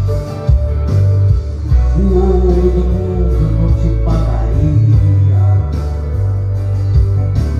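A young man singing a Portuguese gospel song into a handheld microphone over a musical accompaniment with sustained low bass notes.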